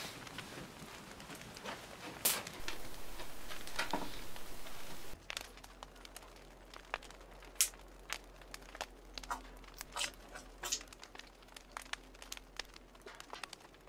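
Small wood fire crackling, with irregular sharp pops and snaps. A steady hiss lies under it for the first five seconds and cuts off suddenly.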